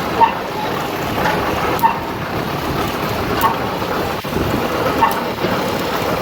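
Steady rushing wind and road noise on a helmet-mounted camera while riding a motorcycle in traffic, with a few short faint chirps now and then.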